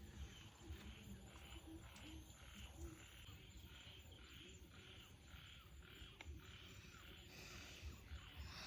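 Near silence: faint background with a soft, even pulsing, a little over twice a second.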